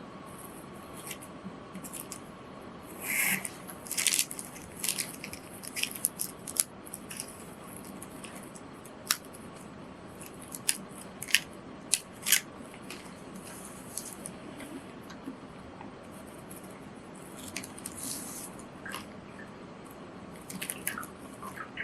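Scissors cutting through a paper etching print: irregular crisp snips, a few sharper ones close together about halfway through, with the rustle of the paper being handled.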